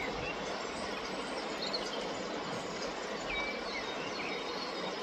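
Steady rush of flowing river water, with a few short, high bird chirps over it.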